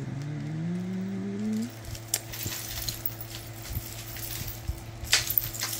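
A drawn-out, rising hum from a woman's voice for the first second and a half, then metal costume jewelry clinking and rattling as pieces are handled and sorted, with a sharper clatter about five seconds in.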